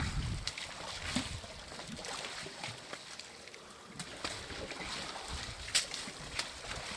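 African elephants wading and drinking in a muddy waterhole: water sloshing, with scattered short splashes, one louder near the end.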